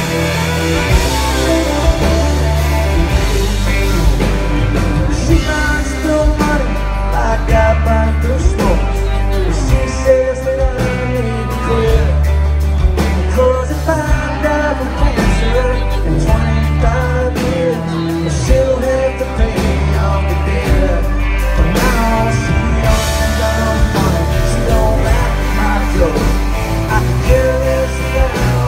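Live country-rock band playing loud through a PA: drums, bass, electric and acoustic guitars and fiddle, with a wavering lead line over the band.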